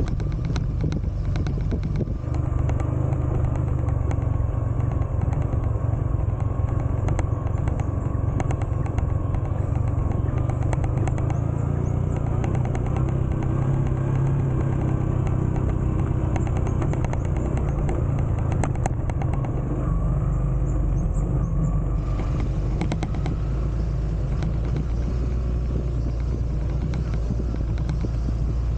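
Motorcycle engine running steadily while riding, with many small rattles and knocks over it.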